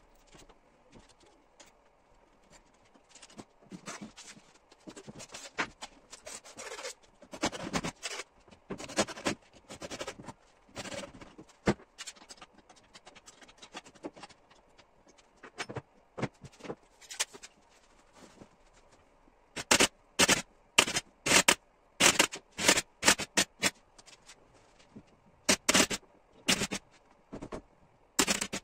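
Leather upholstery cover rustling and scraping as it is handled and pulled over a recliner armchair. From about two-thirds of the way in comes a run of loud, sharp shots, about two a second: an upholstery staple gun fixing the cover.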